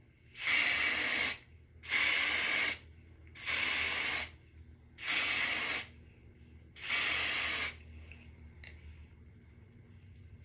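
Aerosol spray can sprayed in five short bursts of just under a second each, evenly spaced.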